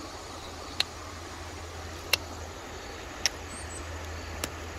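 Quartzite being flintknapped: four sharp, ringing clicks of strikes on the stone, about a second apart, over a steady background hiss.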